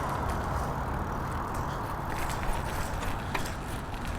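Bicycle riding noise picked up on the bike itself: a steady rumble of tyres and wind with a few light clicks and rattles. Passing road traffic fades away in the first half-second.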